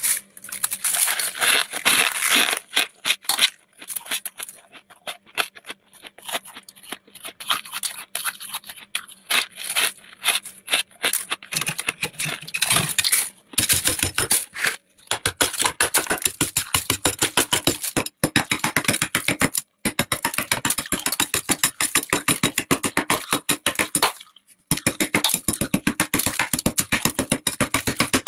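Thick frost build-up in a completely frozen-over freezer being scraped in quick, repeated strokes, several a second, with a few brief pauses.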